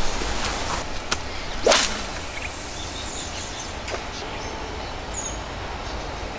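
A spinning rod swishing once through the air in a cast, about two seconds in, with a couple of light clicks before and after. A faint bird chirp is heard over a steady low outdoor background.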